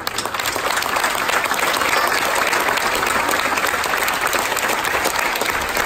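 A large crowd applauding, the clapping starting at once, holding steady and loud, then dying down near the end.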